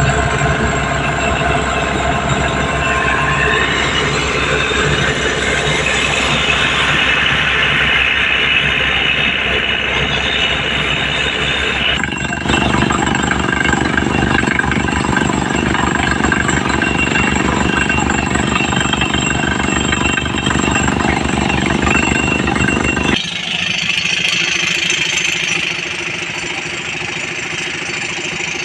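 Heavy machinery running loudly and continuously, with fast low rattling; the sound changes abruptly twice, as between separate clips.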